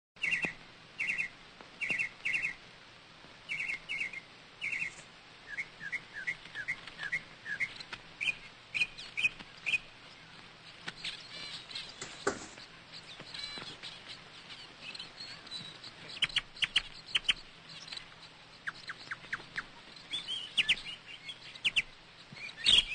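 Small bird chirping: short high calls in quick pairs and runs, repeated over and over.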